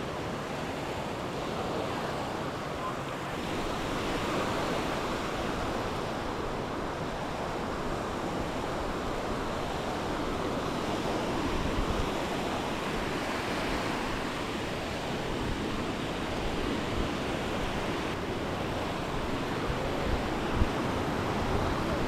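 Small waves breaking and washing up a sandy beach in a steady wash of surf, with wind gusting on the microphone now and then.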